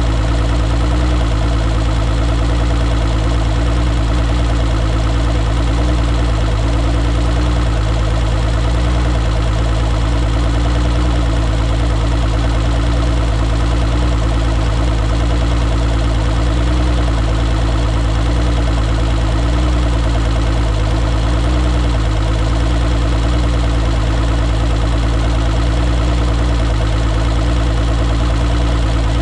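2006 Mercury Optimax 225 outboard, a V6 two-stroke direct-injection engine, idling steadily on flushing water. This is a test run after its vacuum lift pump rebuild.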